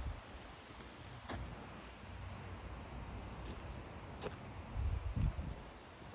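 A cricket chirping in a steady, rapid series of high pulses, with a low rumble on the microphone about five seconds in and a few faint clicks.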